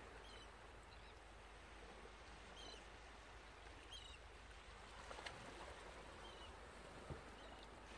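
Near silence: faint steady room hiss, with a few faint short high chirps and two soft clicks about five and seven seconds in.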